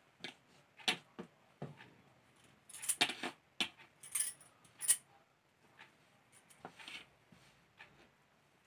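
Saree cloth rustling, with small clicks and jingles, as a fall is hand-hemmed with needle and thread; the sounds come in irregular short bursts, loudest a few seconds in.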